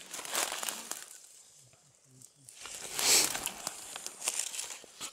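Footsteps crunching and rustling through dry fallen leaves and twigs, in about three bursts of crackling.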